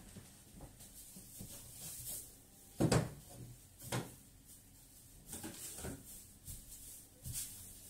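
A few light wooden knocks and clatter as items on a wooden bed headboard shelf are handled during dusting. The loudest knock comes about three seconds in, another a second later, then a few softer ones.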